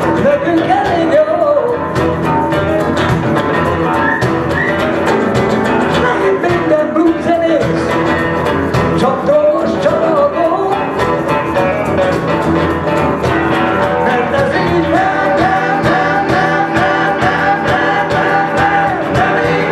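Blues band playing live: guitars strumming and picking under a harmonica playing bending, wavering melody lines, which turn into a quick repeated warble near the end.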